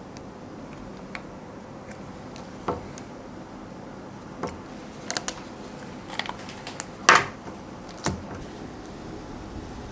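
Scattered clicks and light knocks of objects being handled and set down on a work surface, over steady room noise. They come more often in the second half, with the loudest knock about seven seconds in.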